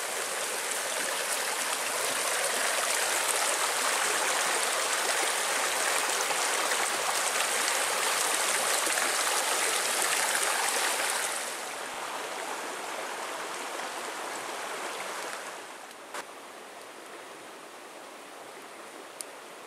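Mountain creek rushing over rocks: a steady wash of running water. It is loudest through the first half and drops away in two steps, a little past halfway and again near the end.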